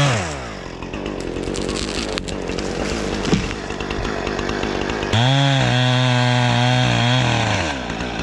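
Two-stroke chainsaw at full throttle drops to idle about half a second in. About five seconds in it revs up again for a quick cut that goes fast through the wood, then winds back down near the end.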